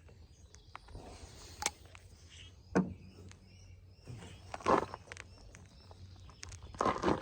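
A few scattered clicks and knocks of hand tools being handled, over a low steady hum.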